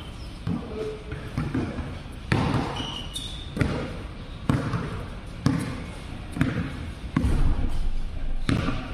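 Basketball being dribbled on a hard court, bouncing about once a second, with a couple of brief high squeaks about three seconds in.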